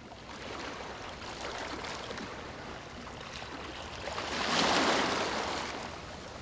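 Ocean waves washing on the shore, with one wave swelling and breaking about four to five seconds in.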